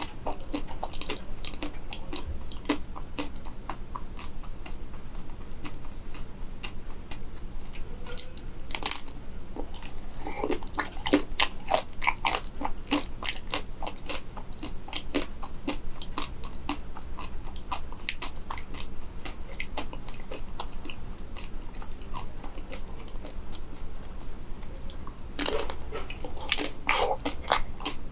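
Biting into and chewing a chocolate-coated banana: the hardened chocolate shell cracks and crunches in many small sharp clicks, with louder bouts of crunching about ten seconds in and again near the end.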